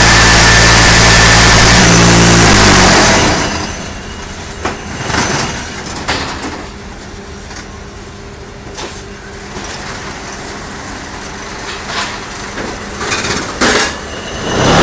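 Concrete paver and block making machine running. A loud, steady mechanical drone stops about three seconds in, leaving quieter machine noise with scattered clanks and knocks. It grows loud again at the very end.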